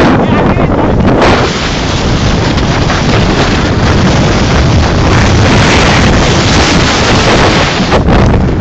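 Strong wind blowing across the microphone: a loud, continuous rumble and hiss.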